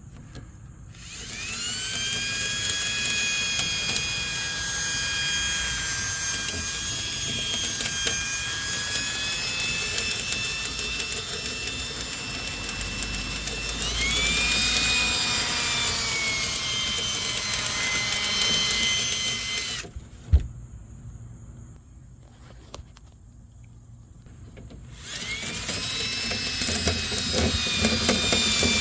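Power drill spinning dryer-vent cleaning rods with a whisk tool inside a lint-clogged duct. The motor whine spins up about a second in, climbs in pitch about halfway, cuts off with a click about two-thirds through, and starts up again a few seconds later.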